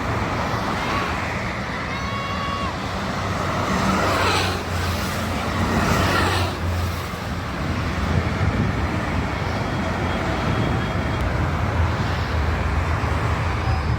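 Toll-road traffic rushing past steadily, with a vehicle passing close by and loudest about four to seven seconds in.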